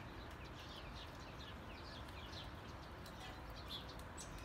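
Songbirds chirping: many short, quick chirps over a faint steady background hiss.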